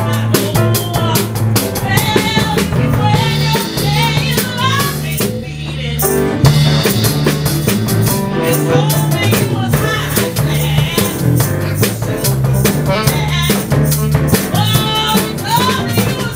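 Live rhythm-and-blues band playing, with a drum kit keeping a steady beat under a walking bass line and a woman singing. About five and a half seconds in, the drums and upper parts stop for about a second, then come back in on a loud hit.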